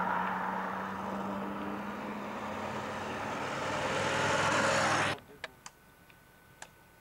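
Street traffic with a motorcycle approaching, its engine noise growing louder to a peak about five seconds in. The sound then cuts off abruptly, leaving near quiet with a few faint clicks.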